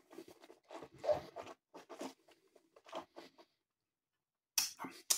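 Faint, irregular mouth sounds and breaths of someone savouring a sip of brandy, with a few sharper clicks near the end.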